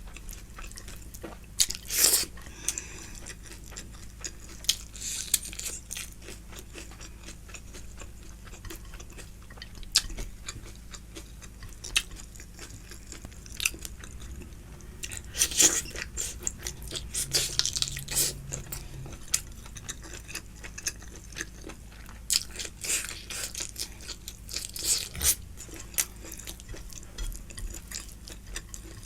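Close-miked chewing and biting of food, with louder crunching bites every few seconds.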